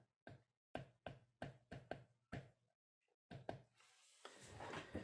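Faint stylus taps and clicks on a tablet screen while words are handwritten, a few a second, pausing briefly just before the three-second mark.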